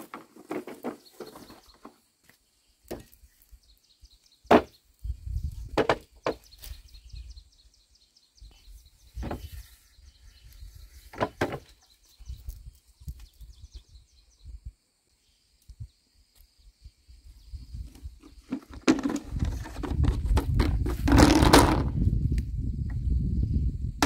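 Hollow bamboo poles being handled, knocking against each other and the frame in a few sharp separate knocks. Near the end comes a longer, louder stretch of scraping and rustling as a pole is dragged, over a low rumble.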